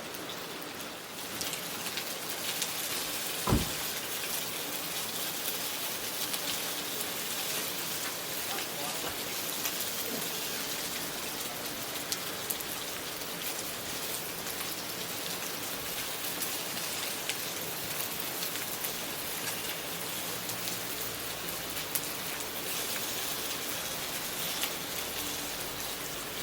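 Steady rain falling and pattering, with scattered small clicks and one sharp knock about three and a half seconds in.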